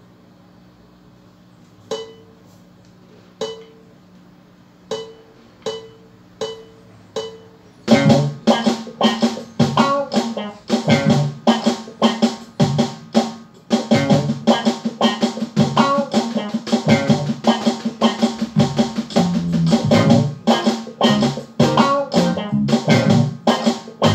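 Six count-in clicks, then, about eight seconds in, a backing track with guitar, bass and drums starts, and a snare drum is played along with sticks in a steady stroke exercise.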